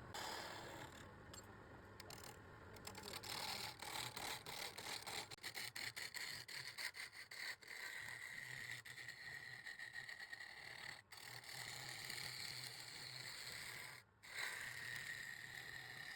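Quick repeated scraping or brushing strokes, then a small power tool running with a steady high whine, cut off abruptly twice.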